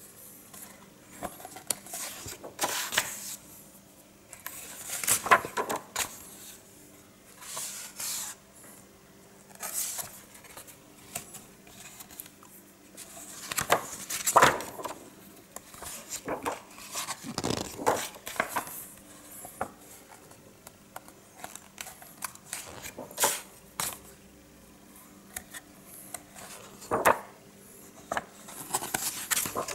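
Pages of a large hardcover comic-strip book being turned by hand, each turn a short papery swish and rustle, coming irregularly every two to four seconds.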